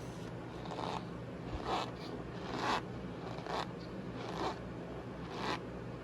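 Cornstarch powder being squeezed and rubbed, giving a series of smooth squeaky crunches about once a second.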